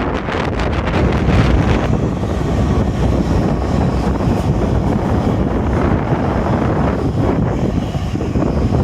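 Strong gusty wind buffeting a phone's microphone: a loud, low rumbling roar that swells and eases with the gusts.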